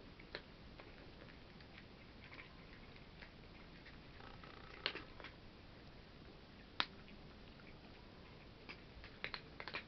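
Two cats eating from a hard floor: scattered sharp clicks of chewing over faint steady room hiss. The loudest click comes about seven seconds in, and several follow in quick succession near the end.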